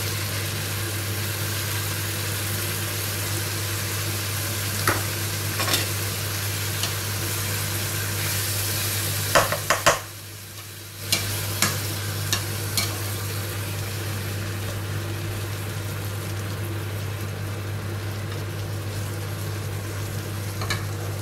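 Peppers, onion and tomato sauce sizzling in a pot while a spatula stirs them, knocking and scraping against the pot now and then. The sizzle drops away briefly about ten seconds in, over a steady low hum.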